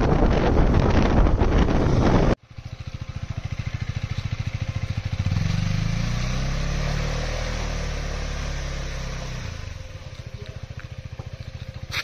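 Background music for the first couple of seconds, then a cut to a KTM RC 390's single-cylinder engine pulsing at low revs as the bike is ridden slowly through a muddy puddle; the revs rise about halfway through, drop back and fade near the end.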